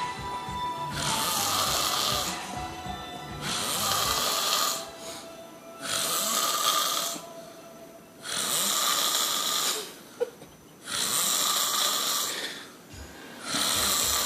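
A man snoring loudly in deep sleep: six long snores at a steady pace, about one every two and a half seconds, with quieter breaths in between.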